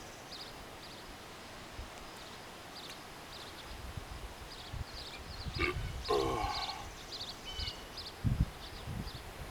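A man drinking from a 40-ounce bottle of high-gravity beer, with a louder throaty burp about six seconds in. Short high chirps repeat in the background throughout.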